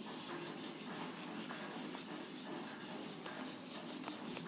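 Faint strokes of a whiteboard eraser rubbing across a whiteboard, wiping the marker writing off.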